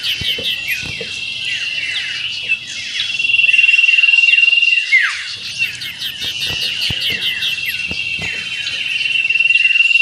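Common iora (cipoh) singing in the fast 'meriwit ngetir' style: quick downward-sliding whistles broken by a long, high rattling trill. The phrase repeats about every five and a half seconds.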